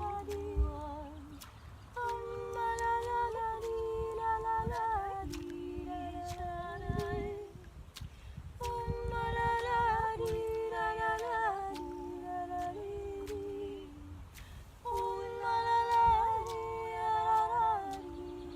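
Two voices humming wordless improvised phrases in close harmony, held notes with small glides, in three phrases of about six seconds each. A low rumble runs underneath.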